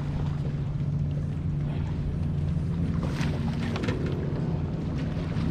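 Boat motor running with a steady low hum, its pitch shifting slightly about halfway through.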